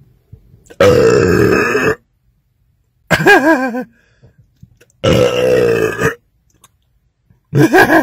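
A man's loud belches after gulping carbonated Mountain Dew. Two long belches of about a second each come about a second and five seconds in, and each is followed a couple of seconds later by a shorter, wavering one.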